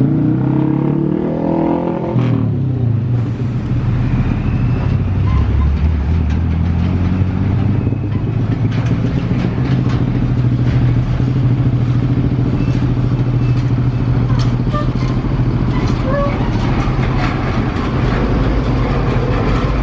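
Busy road traffic of motorcycles and cars, engines running steadily close by, with one engine revving up in the first two seconds.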